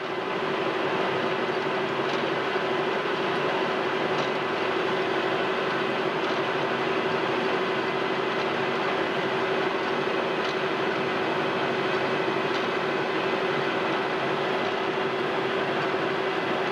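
Metal lathe running at a steady speed with a constant hum and hiss while a carbide-insert tool cuts the end of spinning brass stock; a few faint ticks now and then.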